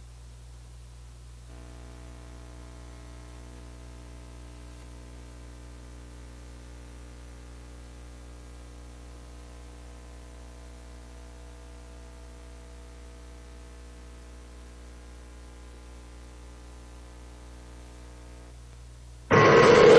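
Steady low electrical hum with a faint chord of steady tones over it, which stops near the end. Then loud audio from the clip being played cuts in suddenly through the sound system.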